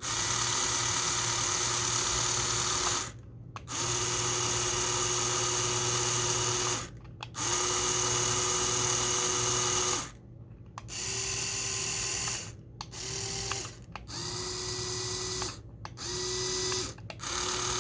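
Small brushed DC toy motors switched on and off by the remote, running in bursts with a steady whine that rises in pitch as they spin up. There are three runs of about three seconds, then five shorter ones, each stopping suddenly. One motor sounds kind of crunchy, which the owner thinks needs taking apart and cleaning.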